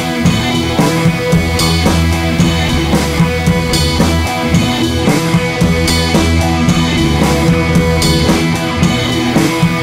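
Background rock music with drums and guitar, a steady beat throughout.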